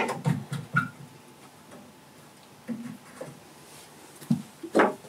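Short clicks and knocks from handling a wooden-and-metal bowstring jig while tightening it: a quick cluster in the first second, a few scattered ones later, and the loudest knock near the end.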